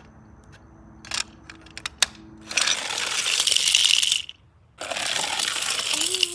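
A few sharp clicks of plastic toy cars being handled, then two runs of rolling noise as small toy cars roll down a plastic ramp onto concrete: the first begins about two and a half seconds in and lasts nearly two seconds, the second starts about five seconds in.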